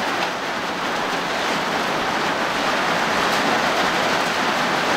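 Heavy monsoon rain pelting the steel roof and body of a converted school bus, heard from inside as a loud, steady hiss.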